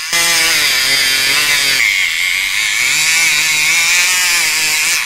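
Battery-powered electric pencil sharpener running with a pencil pushed in, its small motor whining as the blade shaves the pencil. The sound shifts about two seconds in and stops abruptly near the end.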